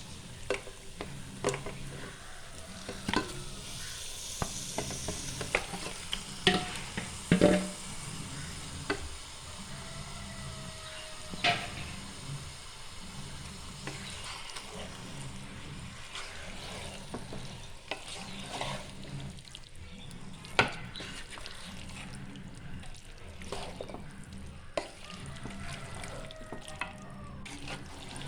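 Marinated chicken sizzling in a pot of onion-tomato masala while being stirred with a spoon, which knocks against the pot now and then; the loudest knocks come about seven, eleven and twenty seconds in.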